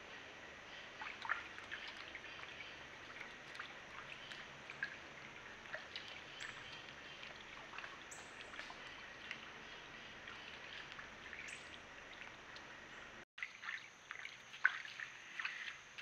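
White-tailed deer wading in a shallow creek: faint, scattered small splashes and trickles from its steps in the water over steady background noise. The sound drops out briefly about 13 seconds in, then louder splashing steps follow.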